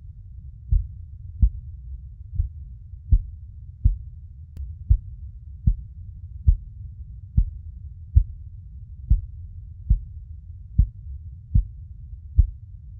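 A mother's heartbeat: dull low thumps in a steady rhythm, a little over one a second, over a constant low rumble.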